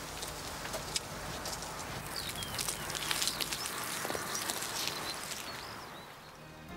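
Outdoor background hiss with a few short bird chirps around the middle and scattered light clicks.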